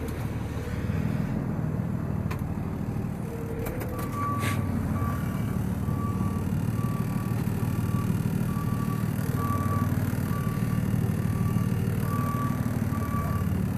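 Delivery truck engine running steadily, with its reversing alarm starting to beep about four seconds in and repeating about once a second as the truck backs up.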